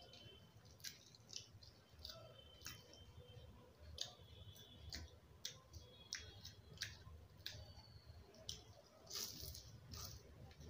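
Faint close-up eating sounds: many short mouth clicks and smacks as a person chews pieces of kachori, with fingers breaking the fried pastry apart.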